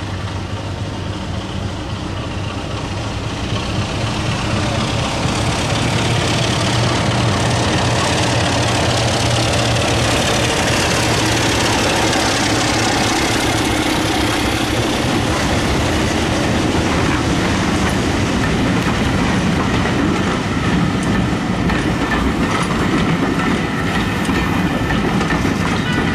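Passenger train passing close by, growing louder over the first few seconds as it draws level. Then the coaches roll past with a steady clatter of wheels over the rail joints.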